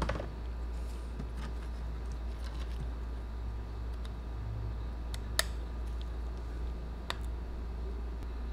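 Small, sharp plastic clicks as a model truck's plastic bumper is handled and pressed against its plastic chassis plate, with two sharper clicks about five and seven seconds in, over a steady low hum.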